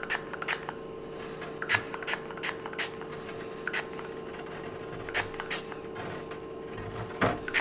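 Glass olive oil mister spraying in many quick, short spritzes at an irregular pace.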